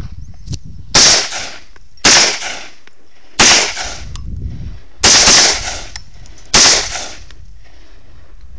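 AR-15 rifle firing semi-automatic shots: about six sharp shots at an uneven pace, two of them in quick succession, each trailing off in a short echo.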